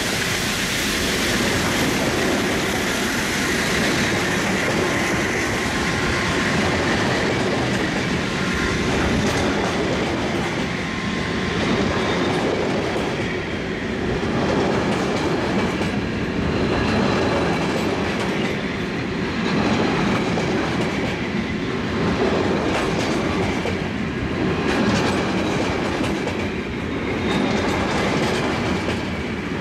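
Freight wagons loaded with steel pipes rolling past close by, their wheels clacking and rumbling on the rails. The rumble swells and eases about every two to three seconds as the wagons go by.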